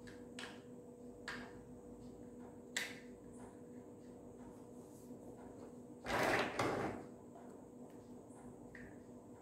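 Plastic building blocks clicking and knocking as pieces are handled and pressed together, a few sharp clicks in the first three seconds, then about six seconds in a louder scraping rattle lasting under a second as blocks are moved on the table. A steady low hum runs underneath.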